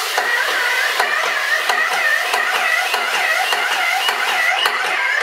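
Airless spray gun of a Graco Aspro 6000 putty sprayer spraying thinned putty through a 39 tip: a loud steady hiss with a whine that wavers about three times a second, cutting off suddenly at the end.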